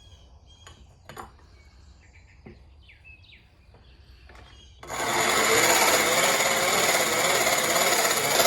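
A few light knocks and short bird chirps, then about five seconds in a grinding wheel starts up abruptly and runs loud and steady, grinding the steel plane iron to square its edge and set the bevel.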